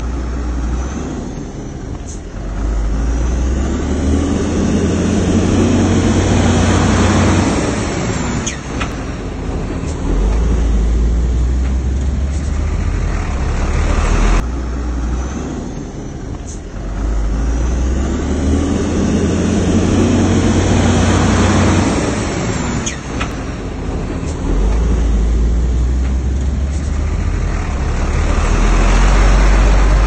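Heavy diesel engine of earth-moving machinery running under load, its sound swelling and easing every few seconds. The same stretch of sound repeats about every fourteen seconds.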